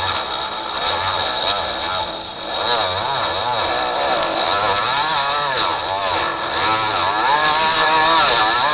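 Milling machine cutting into a ukulele's wooden body, with a whine that wavers up and down in pitch again and again.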